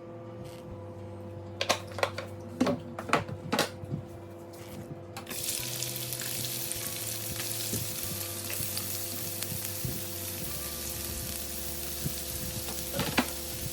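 A few sharp knocks of utensils or food against a pan, then food starts sizzling in hot oil about five seconds in and keeps frying steadily.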